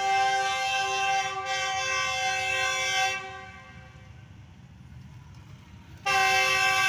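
Diesel locomotive's air horn blowing a long, steady multi-tone blast that stops about three seconds in, then sounds again abruptly shortly before the end.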